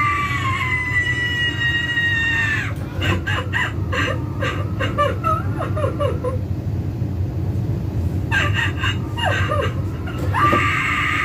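Spirit Halloween Eternal Rest animatronic playing its voice track. A long, high wailing scream falls slowly in pitch and ends about three seconds in. Quick broken sobbing follows, and another long wail begins near the end.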